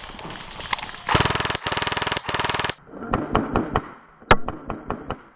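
Airsoft electric rifle firing full-auto in three quick bursts of about half a second each, starting about a second in. Then comes a string of separate sharp shots, about five a second.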